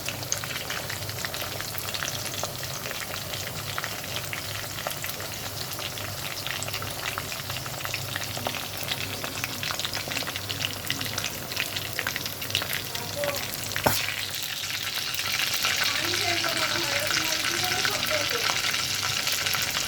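Chicken pieces frying in hot oil, a steady crackling sizzle. A single sharp knock comes about 14 seconds in, after which the sizzle grows louder and denser.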